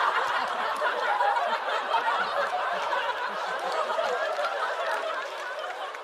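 Studio audience laughing at a punchline, the laughter slowly dying down.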